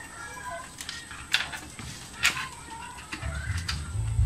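Sharp clicks and knocks from hands handling cables and panels inside a steel PC case, with low thumps near the end. Birds call in the background.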